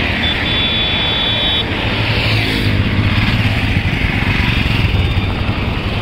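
Royal Enfield Himalayan single-cylinder motorcycles riding past close by one after another, engines running steadily.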